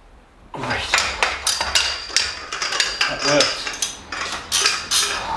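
Steel hand tools clanking and clinking in quick succession as a long breaker-bar extension and crowfoot wrench are worked and handled, starting about half a second in.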